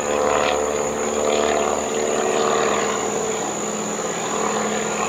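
Crop-dusting plane's propeller engine droning steadily as it flies low over the houses.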